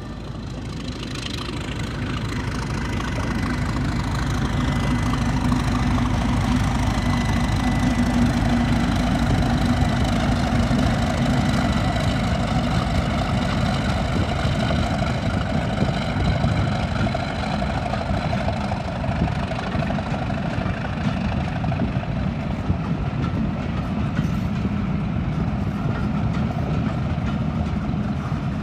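Class 37 diesel-electric locomotive with its English Electric V12 engine running as it approaches and passes hauling a train of coaches. The sound grows over the first few seconds, then holds steady as the coaches roll by.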